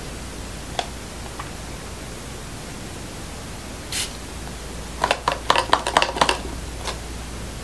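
Handling of a cardboard perfume box and its bottle: a light click early, a short hiss about four seconds in, then a cluster of taps and rustles of cardboard from about five to six and a half seconds, over a steady background hiss.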